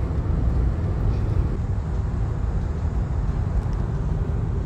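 Steady low rumble of tyre and wind noise inside a Tesla's cabin while driving on a motorway, with no engine sound from the electric drive.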